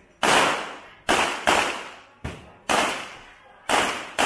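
Handgun shots fired one at a time during an IPSC stage, about six at uneven spacing, each followed by a long echo under the range's roof.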